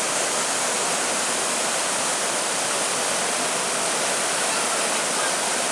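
Steady, loud rush of flowing creek water.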